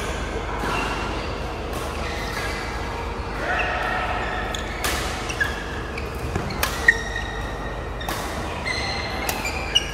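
Badminton rally: rackets smack the shuttlecock several times, with short high squeaks of shoes on the court mats, echoing in a large hall where several games are being played.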